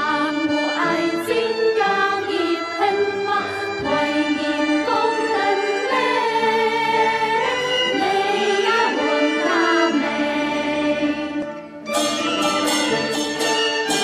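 Five women singing a Kaiping folk tune into microphones over a Chinese folk orchestra. About two seconds before the end the voices stop, and the orchestra plays on alone with bamboo flutes (dizi) to the fore.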